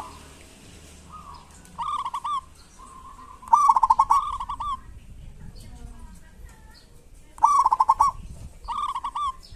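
Zebra dove (perkutut) calling: four short phrases of rapid staccato cooing notes, two of them louder than the others.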